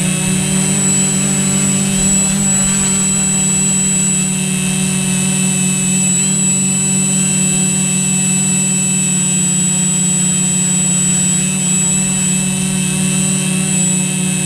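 Quadcopter drone's electric motors and propellers running steadily as it hovers, a loud drone with a high whine. The pitch shifts slightly a couple of times as the motors adjust their speed.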